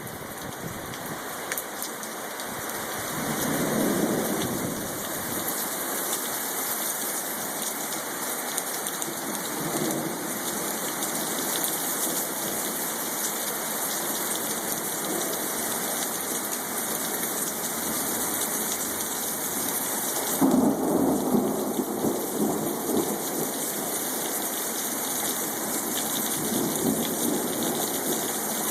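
Thunderstorm: steady rain falling with several rolls of thunder, the loudest rumble about two-thirds of the way through.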